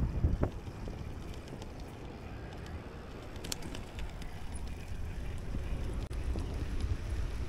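Low wind rumble on the microphone during a bicycle ride, growing louder near the end, with a few faint ticks about halfway through.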